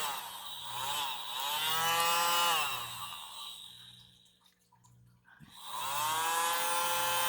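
Tiny handheld hair dryer's small motor whining as it blows wet pour paint across the surface, its pitch wavering up and down as the speed is eased. It dies away about three seconds in, then spins back up near six seconds and holds a steady pitch.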